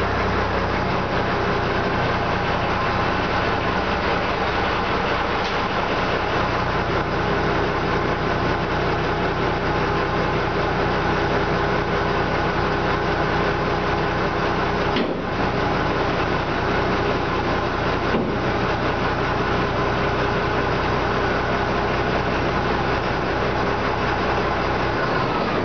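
Dump truck engine running steadily at idle, driving a PTO-mounted hydraulic pump that raises and lowers the dump bed. The drone dips briefly about halfway and stops suddenly at the very end.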